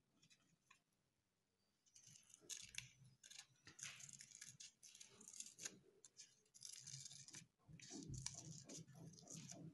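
Small scissors snipping the corners off little squares of black paper to round them into wheels: a faint run of short, crisp cuts with paper rustling, starting about two seconds in.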